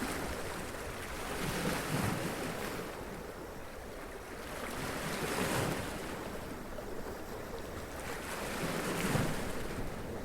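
Sea waves washing up against rocks, surging three times about three and a half seconds apart over a steady wash of surf.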